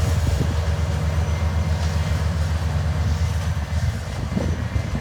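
Diesel engines of sweet corn harvesting machinery running steadily, a low, even drone.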